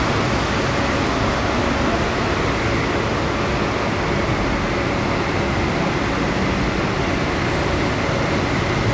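Steady, even outdoor city noise: a dense hiss of distant road traffic with faint steady hums and no distinct event, while a monorail train runs along its elevated guideway in the distance.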